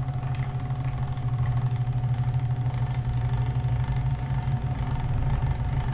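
Motorized pasta machine running steadily, its electric motor humming as it rolls a sheet of pasta dough through the rollers.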